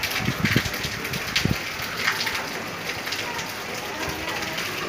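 Light drizzle falling, heard as a steady hiss of rain with many separate drops striking hard surfaces close by. A few heavier drips knock about half a second and a second and a half in.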